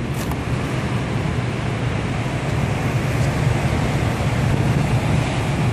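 Steady rumble and air rush from an old running air handler's blower, with a short sharp click about a quarter-second in.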